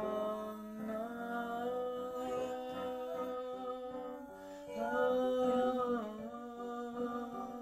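A woman's and a man's voices singing long held notes with no clear words, over sustained digital-keyboard chords. The voices swell louder about five seconds in, then ease back.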